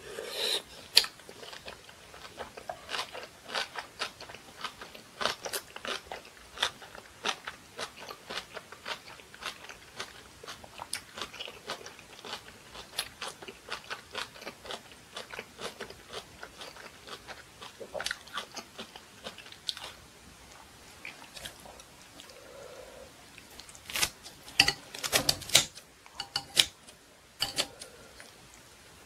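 Close-up crunchy chewing of napa cabbage kimchi, many quick crisp crunches for about twenty seconds. Near the end, a few louder sharp clicks as kitchen scissors cut through the kimchi.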